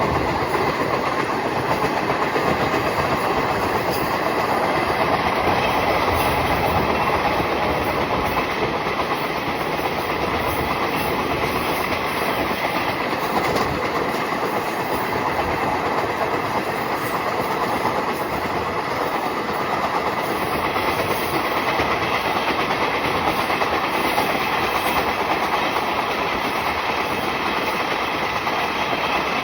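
Passenger train running past on the rails, its wheels clattering steadily over the track throughout.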